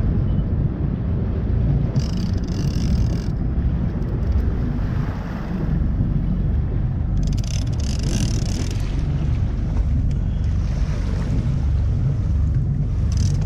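Wind buffeting the microphone on a fishing boat at sea: a constant low rumble, with three brief hissing rushes about two, seven and thirteen seconds in.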